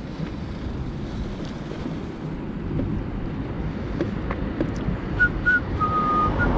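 Mini Crosser mobility scooter riding along with a steady low rumble and wind on the microphone. A few short, high whistled notes come in near the end.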